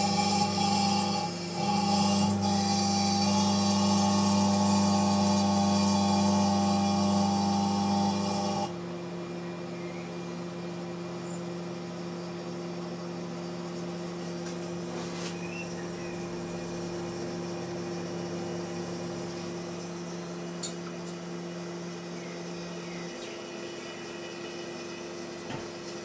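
Panasonic inverter microwave oven running with a metal halide lamp inside, the lamp glowing and arcing: a loud, buzzy hum that drops suddenly to a quieter steady hum about nine seconds in.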